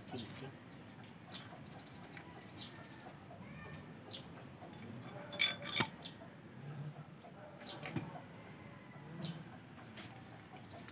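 A few sharp metallic clinks from motorcycle front-fork steering parts being handled and fitted together, the loudest a quick ringing pair about five and a half seconds in. Faint bird calls in the background.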